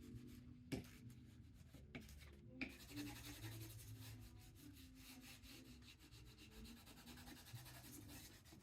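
Faint, continuous rubbing of a wooden spoon pressed over paper laid on an inked relief block, hand-burnishing a print, with a couple of light clicks early on.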